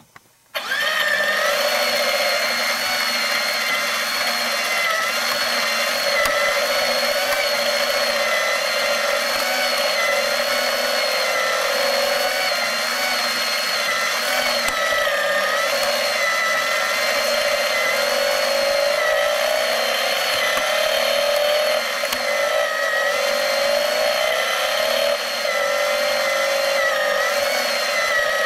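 The motor-driven mechanism of a BMW R90S engine plastic model kit switches on about half a second in and runs steadily. Its plastic gears whir with a wavering whine. The transmission gears are painted, which the builder suspects makes them move less smoothly.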